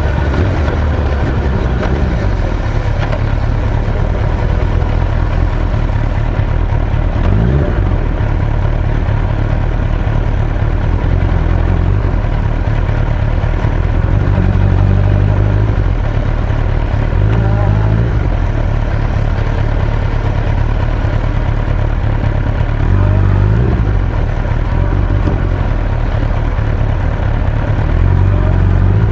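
Motorcycle engine running while riding, heard together with steady wind and road noise; the low engine sound swells briefly a few times.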